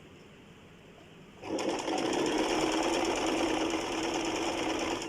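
Electric sewing machine running a steady stretch of stitching, starting about a second and a half in and stopping near the end.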